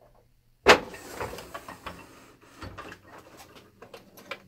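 Someone rummaging through tools to find one for pulling a clip: a sharp knock a little under a second in, then a run of clattering, scraping and small clicks.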